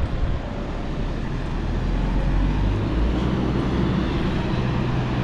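Steady street traffic noise: a low rumble and hiss, with a low engine hum that settles in about two seconds in.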